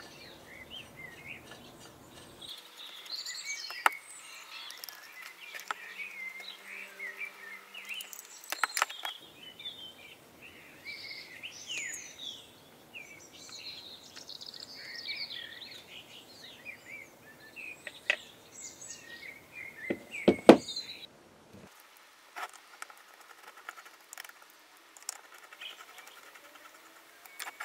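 Small birds chirping and twittering throughout, with scattered sharp clicks and knocks from aluminium engine parts and a screwdriver being handled on a workbench; the loudest knock comes about twenty seconds in.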